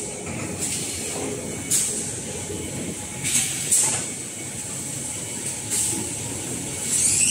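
Toilet-roll paper production machinery running with a steady mechanical noise, broken by about five short bursts of hiss. Right at the end a whine begins to rise in pitch.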